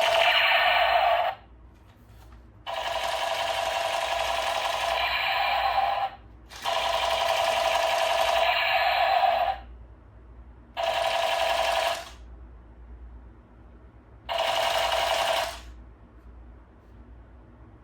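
Battery-powered toy gun's firing sound effect, a rapid steady-pitched rattle that plays in five bursts as the trigger is pressed and released. The bursts run from about one to three and a half seconds each.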